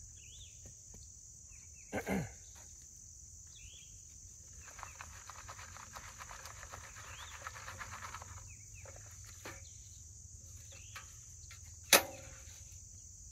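Steady high drone of crickets and other insects, with dirt being sifted over a trap bed as a dense rustle of small ticks in the middle. There is a sharp noise about two seconds in, and a single loud, sharp click near the end.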